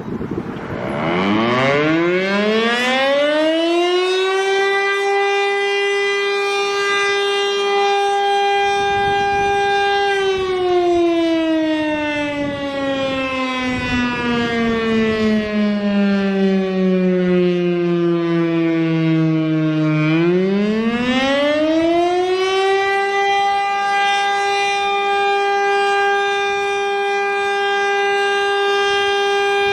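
Tornado warning siren sounding a wail. It winds up from a low pitch to a steady high tone, holds about six seconds, then slowly winds down over about ten seconds. It winds back up, holds again, and starts to drop right at the end.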